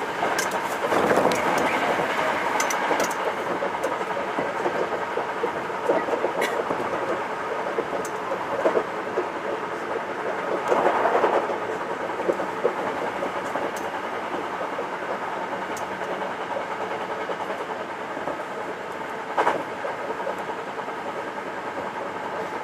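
Hankyu 9300-series electric train running on the line, heard from inside at the front of the train: steady running noise with a steady hum, and scattered clacks of wheels passing over rail joints and points at irregular intervals.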